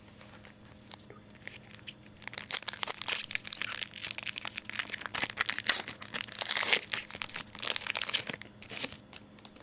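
A trading-card pack's wrapper crinkling and tearing as it is opened by hand. A dense run of crackles starts about two seconds in and stops shortly before the end.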